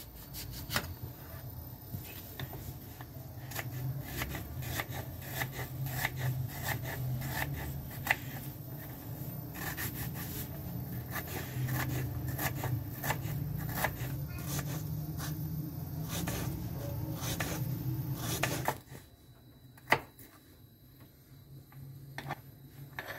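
Knife cutting and chopping an onion on a wooden cutting board: a long run of irregular clicks, taps and scrapes of the blade against the board. A steady low hum runs underneath and cuts off about three-quarters of the way through, leaving a few quieter taps as the chopped onion is gathered.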